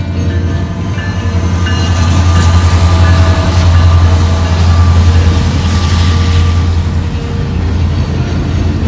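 Norfolk Southern diesel freight train passing, the locomotive's engine giving a loud, steady low rumble over the noise of the rolling cars, loudest in the middle.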